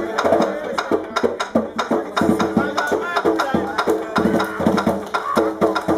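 Live danmyé music: a bèlè drum played by hand, driven by a fast run of sharp wooden clicks, with voices singing over it.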